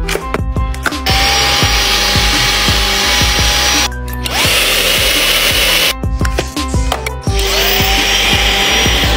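Roborock H7 cordless stick vacuum running: a steady hiss of air with a high motor whine. It cuts out a few seconds in and again around six seconds, and each time it comes back the whine rises as the motor spins up. Music plays underneath.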